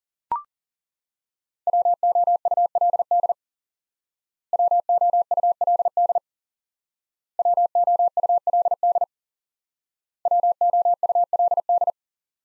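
The word "would" sent four times in Morse code at 40 words per minute as a single keyed sine tone, in four quick bursts of dots and dashes with pauses between them. A short blip sounds just after the start.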